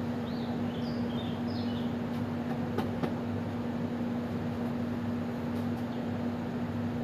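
Steady machine hum at one constant pitch, with a few short bird chirps in the first two seconds and a single sharp click about three seconds in.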